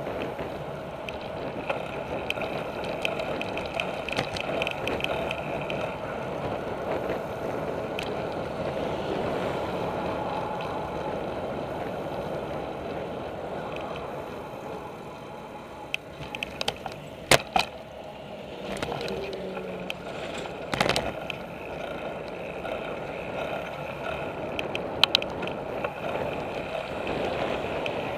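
Bicycle riding along pavement, heard from its handlebars: steady rolling and wind noise, broken by a few sharp clicks and knocks a little past halfway and again near the end.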